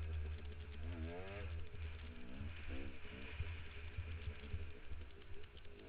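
Dirt bike engine revving up and down in surges as it climbs a steep loose hill, over a steady low rumble.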